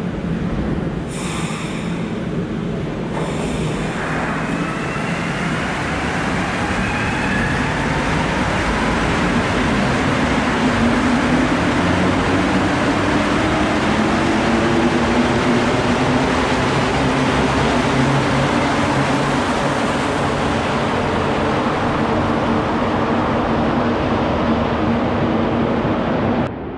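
Montreal Metro rubber-tyred train pulling away through the station, its motor whine rising in pitch and growing louder as it speeds up.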